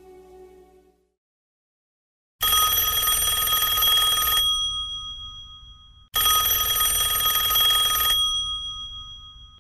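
Music fades out, and after a short silence a telephone bell rings twice. Each ring lasts about two seconds and leaves a brief ringing tail, with a gap of under two seconds between the rings.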